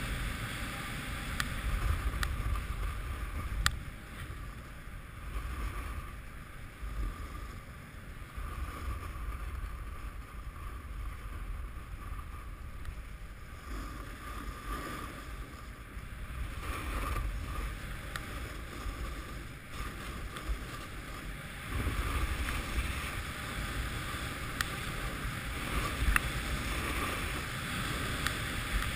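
Wind rushing over a GoPro action camera's microphone, mixed with the steady hiss and scrape of a snowboard sliding over groomed snow. The rushing grows stronger late on as speed builds.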